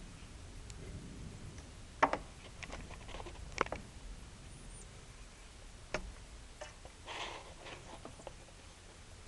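A bird pecking at window glass: a few sharp, scattered taps, irregularly spaced, the loudest a quick double tap about two seconds in.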